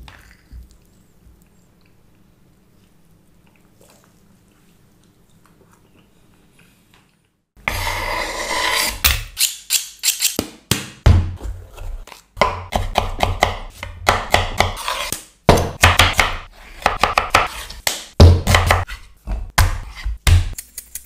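Close-up kitchen sounds: faint spoon scraping in a glass dessert bowl, then about a third of the way in a loud crackling crinkle of plastic packaging lasting a couple of seconds. After that comes a string of sharp knocks and dull thuds of a knife and hands working raw chicken breast on a wooden cutting board.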